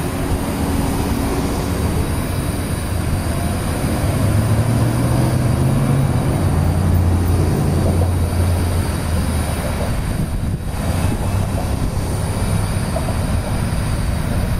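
Steady low engine rumble with a droning hum that swells from about four to nine seconds in.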